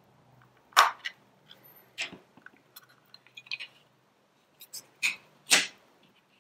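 Plastic case of a Sonoff DW2-WiFi door/window sensor being pried open with a flat-head screwdriver: a sharp snap about a second in as the cover's clips give, then scattered small clicks, and two more sharp plastic clicks near the end as the opened halves are handled.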